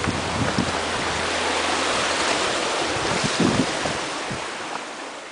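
Running water rushing steadily, with a few low thumps, fading out near the end.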